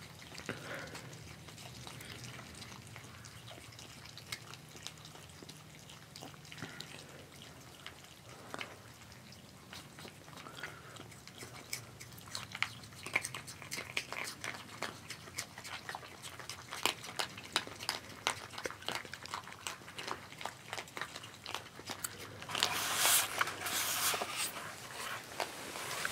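Several young Virginia opossums chewing and crunching dry kibble from a dish, a quick irregular run of wet clicks and crunches. Near the end a louder burst of rustling comes close up.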